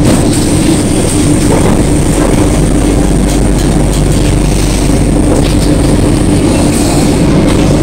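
Passenger train running through a station, heard from inside the carriage: a steady rumble of wheels on the rails with a constant low hum and a faint high whine.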